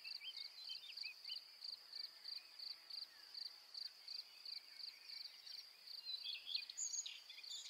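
Faint meadow ambience: an insect chirps in a steady high rhythm, about three chirps a second, with a few short bird calls near the start and again near the end.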